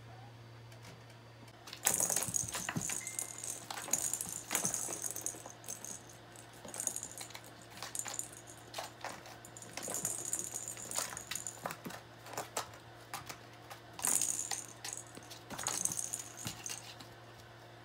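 Small hard objects rattling and jingling in irregular bursts, over a low steady hum.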